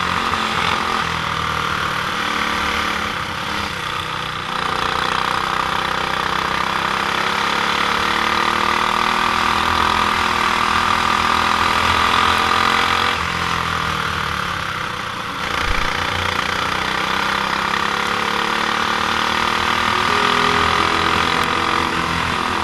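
Kart's Honda GX390 single-cylinder four-stroke engine running, its pitch and loudness dropping off about three seconds in and again around thirteen seconds in, then climbing back up.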